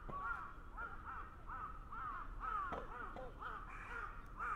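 A crow cawing in a rapid run of short calls, about two a second.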